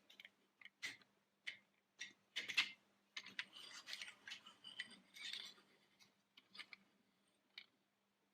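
Small plastic toy construction trucks being handled: light clicks and taps about once a second, with a stretch of plastic rubbing and rolling in the middle.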